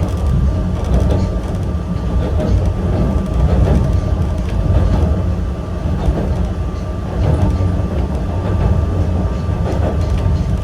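Yokkaichi Asunarou Railway 260 series narrow-gauge electric car running, heard from inside the car: a steady loud rumble of wheels on rail and the nose-suspended traction motor drive, with a thin steady high tone over it.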